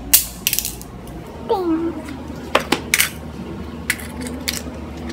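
Sharp clicks and clacks of small hard objects being handled and knocking together, about seven in all and unevenly spaced, the loudest just after the start. About one and a half seconds in comes a short voice-like sound that falls in pitch.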